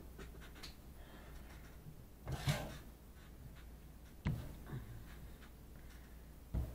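Light handling noises in a quiet small room: a short noisy sound about two and a half seconds in, then two sharp knocks, one a little past four seconds in and one near the end.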